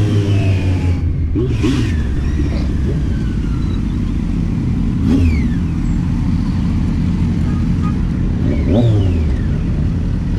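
Kawasaki Z900's inline-four engine running as the bike rides along, mostly steady, with three brief rises in engine pitch. Steady wind and road noise run underneath.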